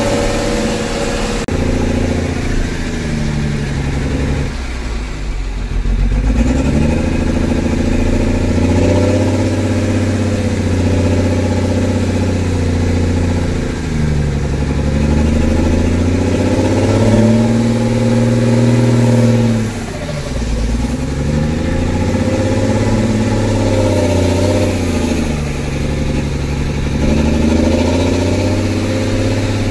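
Truck engine heard from inside the cab while driving: the engine note climbs and falls repeatedly, dropping sharply a few times as the truck changes gear.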